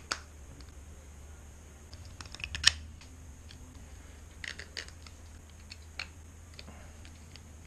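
Scattered clicks and taps of small skateboard hardware being handled: bearings, spacers and a skate tool, while wheels are fitted to the trucks. One sharp click a little under three seconds in is the loudest.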